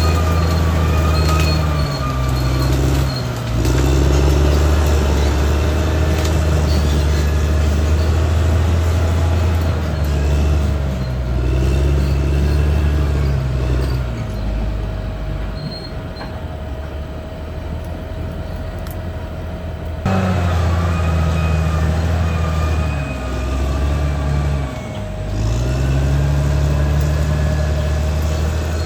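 Caterpillar D6R XL bulldozer's diesel engine running under load. Its pitch sags and recovers twice as it lugs, over a steady whine and wavering higher squeals. The sound drops back for a few seconds in the middle, then returns suddenly.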